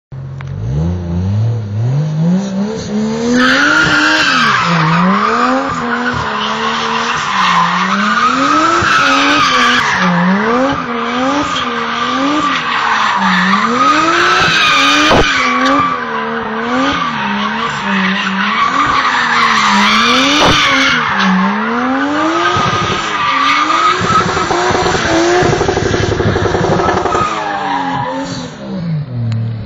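Toyota JZX100 Chaser's 2.5-litre turbocharged 1JZ-GTE straight-six revving up and down over and over while the rear tyres squeal, as the car drifts in circles. The squeal sets in about three seconds in and fades near the end.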